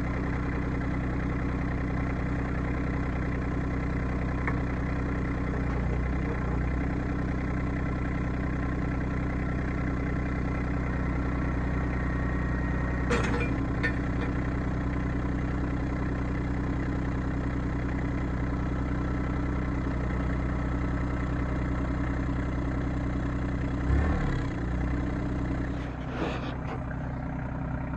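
RK25 compact tractor's diesel engine running steadily as the tractor is driven out from the detached backhoe subframe, with a short knock about halfway through and another near the end.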